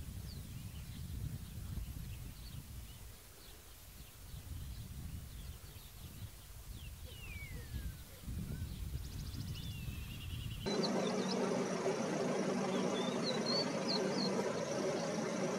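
Wind rumbling on the microphone with faint, thin bird calls, among them a falling whistle about eight seconds in. About ten and a half seconds in the sound changes abruptly to a steady idling engine hum, over which a crested lark gives a short run of chirping notes.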